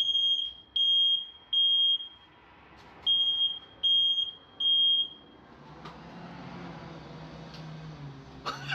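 Smoke alarm sounding in its three-beep pattern: two sets of three high, loud beeps with a short pause between, set off by smoke from soldering copper pipe. The beeping stops about five seconds in, and a low steady hum with a hiss follows.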